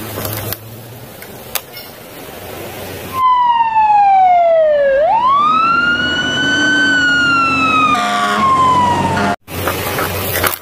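Fire engine siren wailing, starting about three seconds in: the pitch falls, sweeps quickly back up, then slowly sinks again before cutting off abruptly near the end.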